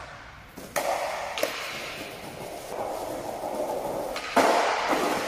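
Skateboard wheels rolling over stone paving tiles, setting off with a clack about a second in, then a louder clatter near the end as the board hits the ground again and rolls on.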